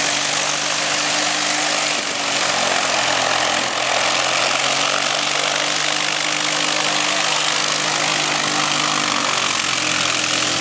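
Lycoming piston engine of a single-engine light aircraft running steadily at low taxi power, propeller turning, as the plane taxis toward the runway threshold.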